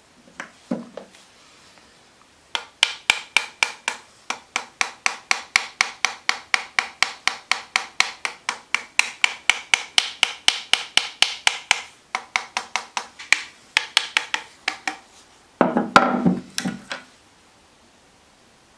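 Small hammer tapping rapidly on a clamped, epoxied knife handle, a long run of sharp ringing blows about four a second, with a brief break partway through. A short clatter follows near the end.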